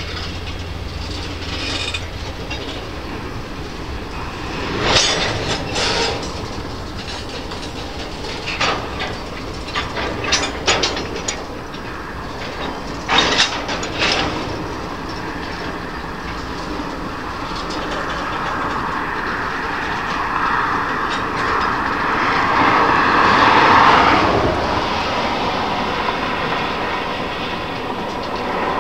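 Freight train cars, tank cars and covered hoppers, rolling slowly past with wheels clacking over the rail joints. Several sharp metallic clanks come in the first half. The rolling noise then grows louder, peaking about three-quarters of the way through.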